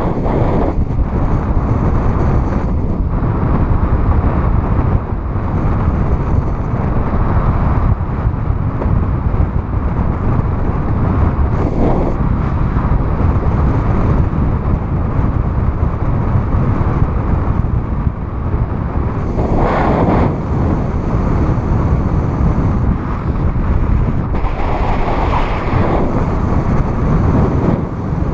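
Wind of a paraglider's free flight rushing over the microphone of the pilot's camera: loud, steady, deep buffeting, swelling briefly a few times in gusts.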